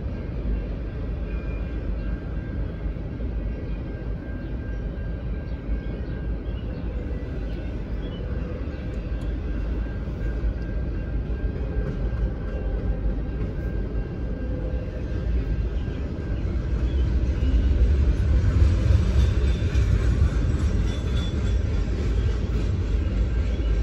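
Freight train cars rolling past a grade crossing: a steady low rumble of wheels on rail, heard from inside a car's cabin, growing louder about two-thirds of the way through.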